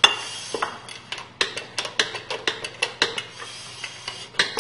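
Rear drum brake being adjusted and turned by hand, giving a string of irregular sharp metallic clicks, about three a second, as the shoes are set to just start to drag.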